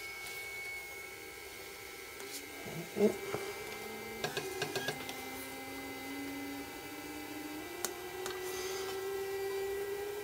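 Vinyl cutting plotter humming steadily while its spring-loaded knife head is pressed down by hand onto a registration mark. There is a sharp click about three seconds in and a quick run of small clicks a second later. A faint whine slowly rises in pitch through the second half.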